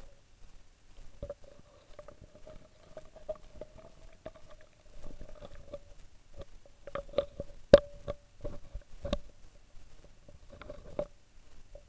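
Close rustling with scattered sharp clicks and knocks, as of the camera brushing through dry leaves and twigs, over a faint steady hum. The loudest knocks come a little past halfway.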